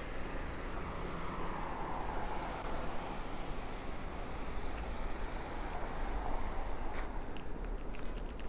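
City street noise: a vehicle passes, its hiss swelling and fading over a few seconds, over a low rumble of traffic. Near the end, footsteps start to click on the pavement.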